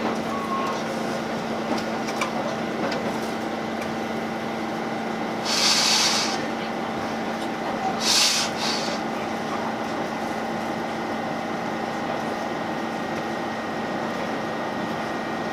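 Interior running noise of a JR Shikoku 8000 series electric train under way: a steady rumble with a constant low hum. Two short hisses come through about five and a half and eight seconds in.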